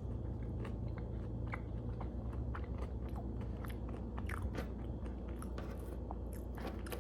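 Close-up chewing of a mouthful of fast food, many small, irregular, wet clicks of the mouth and teeth over a steady low hum.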